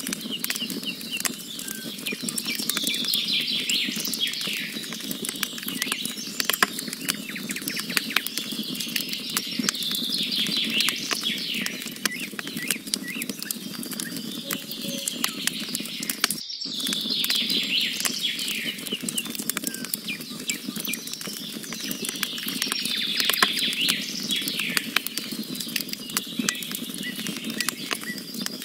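Wood campfire crackling, with frequent sharp snaps from the burning logs, over birds singing in repeated chirping phrases. The sound cuts out for a split second about halfway through.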